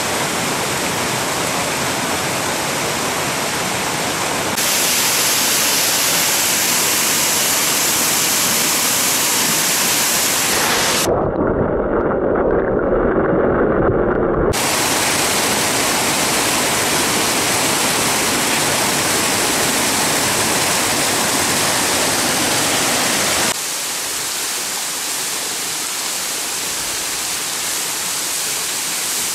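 Steady rush of a mountain stream and waterfall, with the tone shifting abruptly a couple of times. For a few seconds in the middle it turns into a muffled underwater rumble with the highs cut away.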